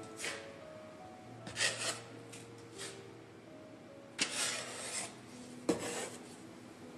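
A wooden spatula scraping under shaped rye bread rounds on a flour-dusted counter and sliding them onto a parchment-lined baking tray: about five short scrapes and rustles, the loudest a little past four seconds in.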